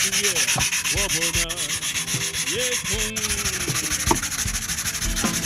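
Diamond plate scrubbed back and forth over a sharpening whetstone to flatten it: a steady, gritty grinding in quick, even strokes.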